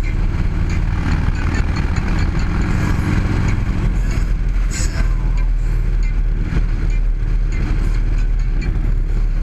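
Harley-Davidson Road Glide's V-twin engine running steadily while the motorcycle cruises along the road, with wind rushing over the microphone.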